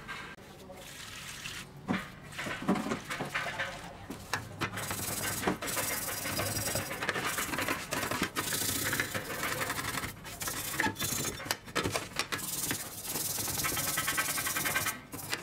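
Scouring pad scrubbing the old National drill's metal housing parts in a shallow metal tray of soapy water: a wet, rasping scrub that keeps up in quick strokes from a few seconds in.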